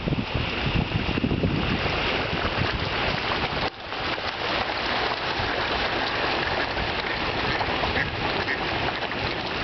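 Water splashing and churning as a packed crowd of koi carp thrash at the surface.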